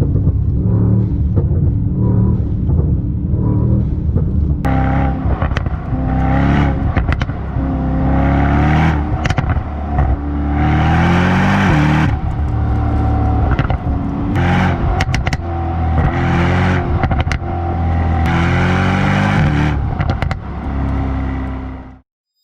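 Brabus Rocket GT 900's twin-turbo V8 running steadily, then from about four seconds in accelerating hard through the gears. Its pitch rises and drops back at each upshift, with sharp exhaust cracks. The sound cuts off abruptly near the end.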